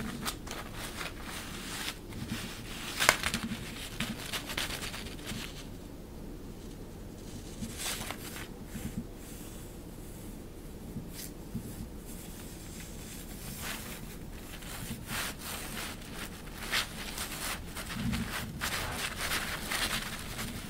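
Thin, crinkly synthetic fabric rustling in irregular bursts as a cat teaser toy is pushed around under and over it. There is a sharp, louder crackle about three seconds in, a calmer stretch in the middle, and busier rustling again near the end.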